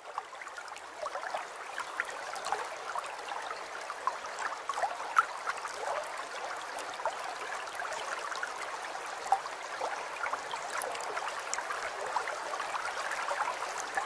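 Running water trickling steadily, with many small irregular splashes.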